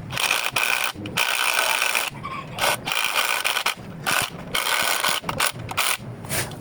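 Hand-tool work on an engine under overhaul: repeated bursts of rasping, ratchet-like mechanical clicking, with short pauses between strokes.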